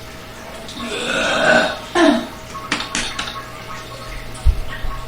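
A person burping after gulping carbonated soda: a long burp about a second in, then a short one that drops in pitch. A few sharp clicks and a low thump follow near the end.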